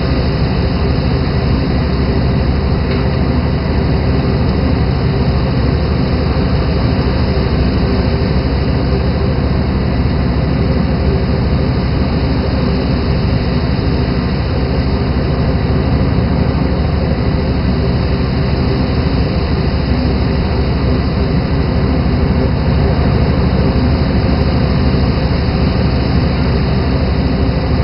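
Fishing boat's engine running steadily: a constant, unchanging drone.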